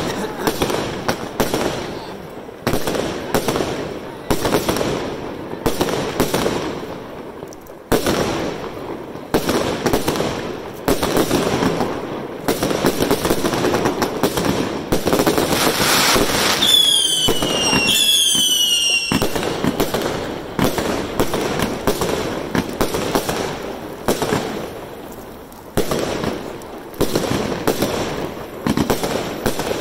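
Aerial fireworks firing and bursting overhead in a rapid run of sharp bangs, one every second or two. About halfway through, two whistling shots shriek and fall in pitch.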